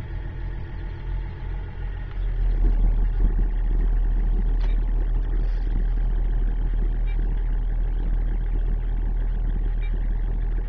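Range Rover Vogue TD6's 3.0-litre six-cylinder turbodiesel idling, heard from inside the cabin: a steady low hum that gets a little louder about two and a half seconds in.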